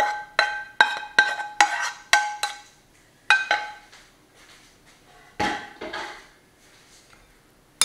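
Fried bacon cubes being knocked out of a nonstick frying pan into a glass bowl: a run of sharp, ringing clinks about two a second, a pause, then two more. About five and a half seconds in comes a single duller knock, after which it goes quiet.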